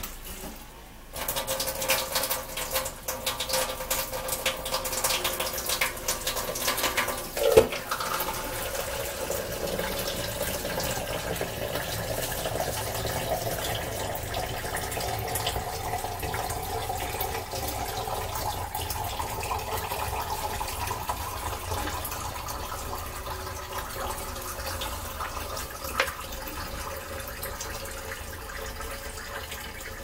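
Water from a kitchen tap running steadily into a metal sink from about a second in, splashing as it is poured from a plastic cup over hair to rinse it. A single sharp knock about seven seconds in.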